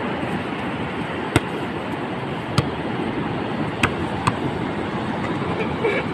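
A volleyball being bumped back and forth by hand: four sharp slaps of hands and forearms on the ball, over a steady rush of surf.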